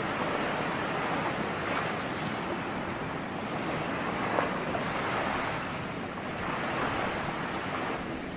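Ocean waves breaking and washing on a shore, a steady surf that swells gently every few seconds, with one short splash or crack about four seconds in.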